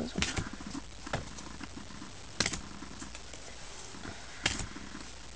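Trading cards and their packaging being handled: a few short, sharp clicks and rustles, spaced a second or two apart, over a low steady hum.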